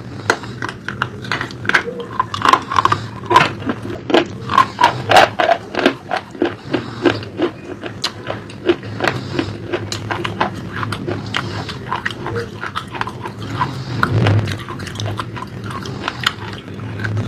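Close-up chewing of crunchy food: a dense run of sharp crunches and wet mouth clicks, louder for the first six seconds and then softer and more even.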